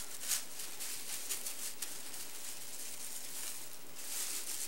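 Strips of plastic grocery bag (plarn) crinkling and rustling as they are pulled through a loop, with a few louder crackles along the way.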